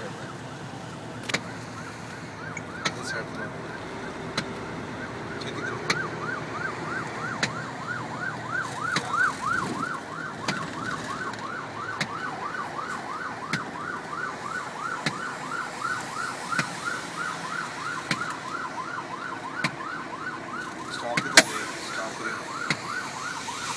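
An emergency vehicle's siren in a fast yelp, sweeping up and down about three times a second and growing clearer after a few seconds. It is heard from inside a moving truck over steady road noise, with regular ticks and one sharp click near the end.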